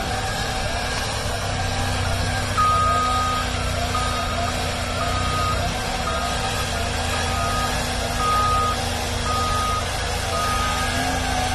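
Cat wheeled excavator's diesel engine running steadily while its boom-mounted blower sends a blast of air and snow across parked cars. A backup alarm beeps at an even pace from about two and a half seconds in until near the end.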